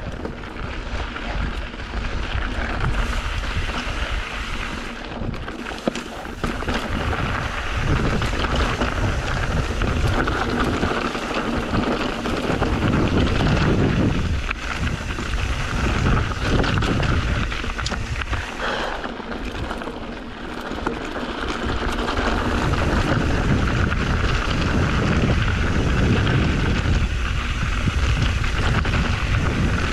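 Wind buffeting a GoPro's microphone while a mountain bike rolls fast down a rocky dirt trail, with tyre rumble and the bike rattling over stones.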